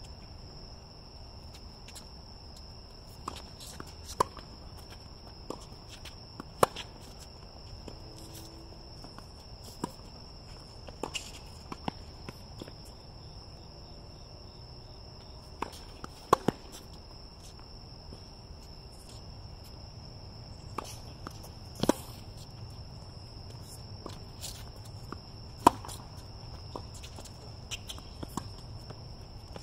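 Tennis balls struck by rackets and bouncing on a hard court in serves and rallies, a sharp pop every second or few, with shoe scuffs and footsteps between shots. A steady high-pitched insect trill runs underneath.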